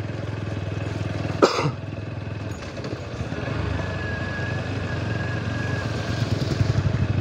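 Motorcycle engine running at low speed in a low gear on a muddy road, with one short sharp sound about a second and a half in; the engine sound grows a little louder near the end.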